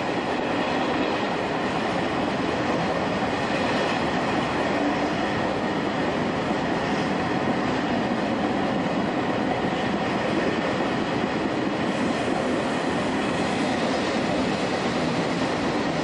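Shin-Keisei 200 series nose-suspended-motor electric train running along the line, heard from on board: a steady rumble of motors and wheels on the rails.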